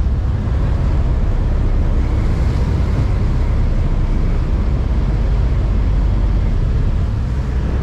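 Steady low rumble of a boat under way: engine noise and rushing water, with wind buffeting the microphone.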